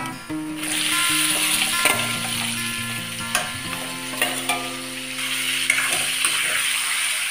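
Raw chicken pieces dropped into hot oil and fried onions in a metal kadai, sizzling from about half a second in, while a metal spoon stirs and scrapes the pan with scattered clicks.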